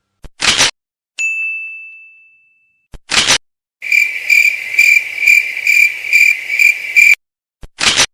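A bright 'idea' ding rings once and fades over about a second, then a cricket chirp effect pulses about three times a second for some three seconds. Short noise bursts come before each.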